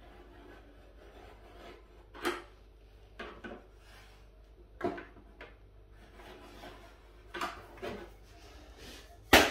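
Pencil scraping on an MDF panel in short strokes as the outline of an access hatch is marked round, with a light rubbing of the hatch panel against the board. A single sharp click near the end.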